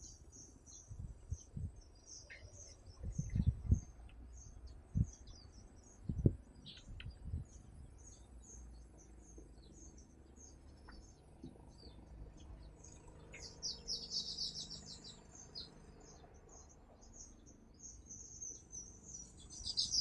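Weaver birds chirping in a steady stream of short, high chirps, busiest about two-thirds of the way through. A few low thuds come in the first six seconds.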